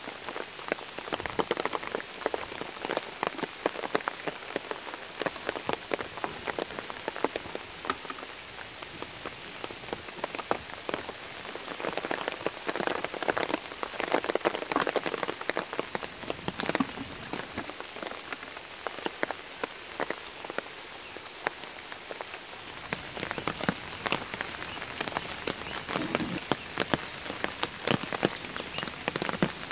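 Steady rain falling on puddles and wet, muddy ground, a dense run of small drop impacts.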